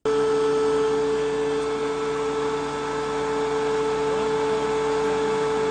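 DeWalt DW735 thickness planer running steadily: an even motor and cutterhead whine with a hum beneath it.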